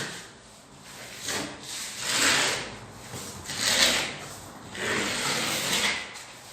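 Drywall spatula scraping filler across a plasterboard ceiling seam in about five strokes, the last one longer. The filler is being spread over reinforcing mesh so the joint does not crack.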